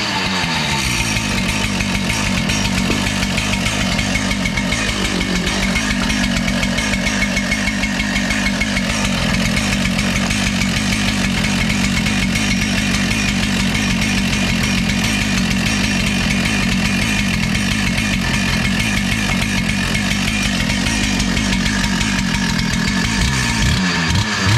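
Makita two-stroke petrol concrete cut-off saw running steadily at a constant speed on its freshly rebuilt engine, then starting to rev near the end.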